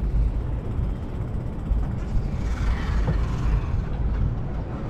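Steady low wind rumble on the microphone of a moving bicycle, with street traffic noise around it. A swell of hiss comes about two to three and a half seconds in.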